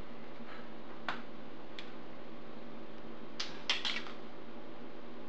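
A few soft scuffs and rustles of a person's body, clothes and shoes against a tiled floor as he kicks up into a headstand, with a small cluster of them about three and a half seconds in, over a steady background hum.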